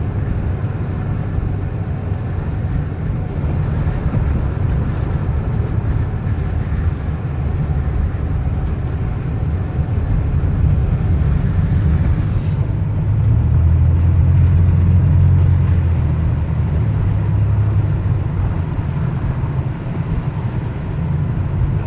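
Car driving slowly over a hail-covered road: a steady low rumble of engine and tyres, swelling a little a bit past the middle.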